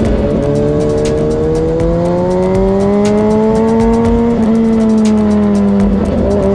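Motorcycle engine pulling under load, its pitch climbing steadily and dropping sharply at gear upshifts, once near the start and again about four and a half seconds in.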